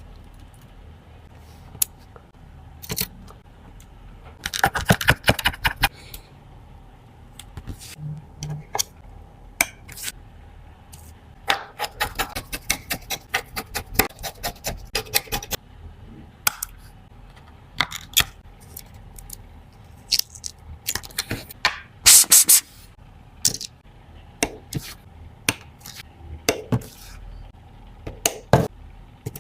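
Small metal tools and phone parts clicking, tapping and scraping in irregular bursts during a phone repair, with a faint steady hum underneath.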